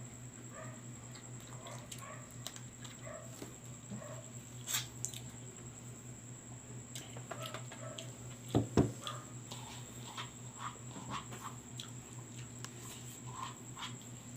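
Eating sounds at close range: chewing, lip smacks and finger-licking over roasted chicken eaten by hand, with many small scattered clicks. A louder double knock comes about eight and a half seconds in, over a steady low hum.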